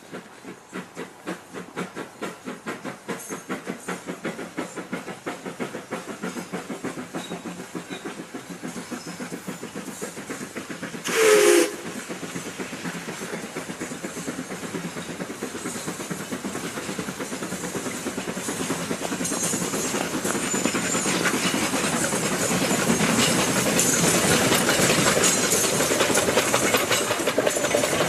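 C2-class narrow-gauge steam locomotive pulling away. Its exhaust beats come about two a second at first, then quicken and grow louder until they merge into a dense hiss of steam. About eleven seconds in there is one short, loud whistle blast.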